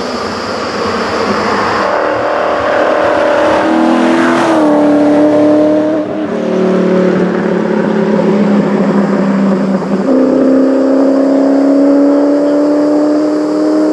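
TVR Griffith 200's tuned Ford 289 V8 racing engine at full throttle, coming up to and passing by about five seconds in, then pulling away. Its pitch drops sharply and climbs again with upshifts about six and ten seconds in.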